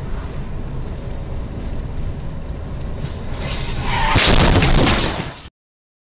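Dashcam recording of a car's road and wind rumble at highway speed. About three and a half seconds in, a car crash: a loud jumble of impacts and scraping, loudest around four seconds in. It cuts off suddenly about a second and a half later.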